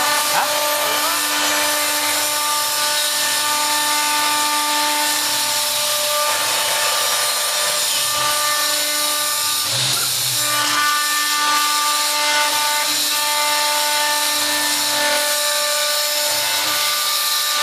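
CNC wood lathe carving a turned wooden spindle: a continuous hiss of the cutter working the wood, with a steady motor whine that drops out and returns several times.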